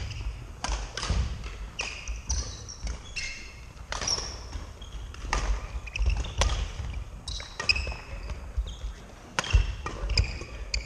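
Badminton rally: a string of sharp racket-on-shuttlecock hits at irregular intervals, with shoes squeaking on the wooden court floor and footfalls thudding.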